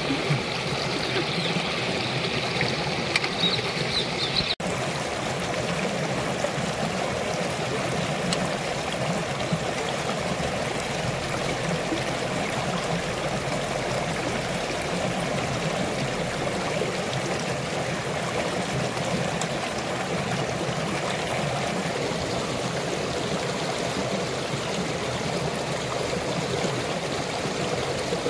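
Shallow rocky stream flowing and splashing over stones, a steady rushing; it breaks off for an instant about four and a half seconds in.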